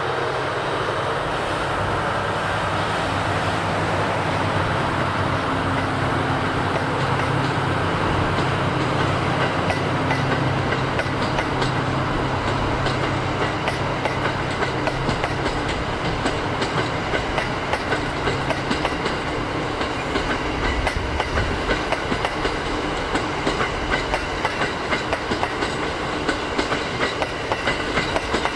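Diesel train at close range: a steady low engine drone, then from about two-thirds of the way in the wheels clatter over rail joints in a regular, growing rhythm as the train moves through the station.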